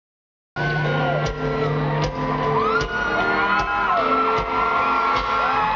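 Live country band and singer performing over an arena PA, with a steady drum beat and fans whooping and shouting over it; the sound comes in suddenly about half a second in.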